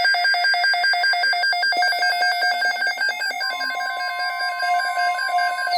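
Emergency weather alert tones: a loud electronic alarm beeping rapidly on two pitches. About halfway through, a steady single attention tone joins it, announcing a severe thunderstorm watch broadcast.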